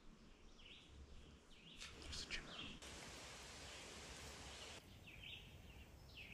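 Faint woodland ambience with short bird chirps every second or so, and a steady hiss for about two seconds in the middle.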